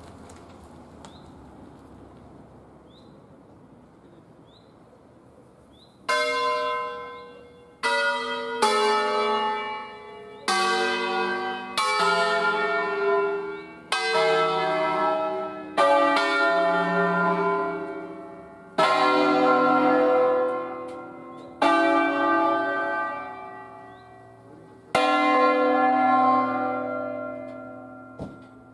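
Eight church bells in C, cast by Luigi Cavadini in 1925, rung by hand. After about six seconds of quiet, about a dozen loud strokes of different pitch follow at uneven intervals, each ringing on and overlapping the next, and the last dies away near the end.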